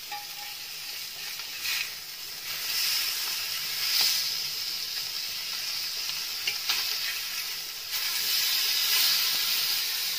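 Marinated fish steaks sizzling as they shallow-fry in oil on a flat dosa tawa. The sizzle grows louder about two and a half seconds in and again near the end, with a few sharp clicks of a steel spatula against the pan as the pieces are worked and turned.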